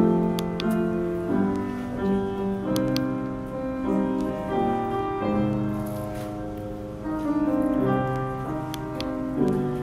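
Slow keyboard music: held chords under a melody, the notes changing about every half second to a second.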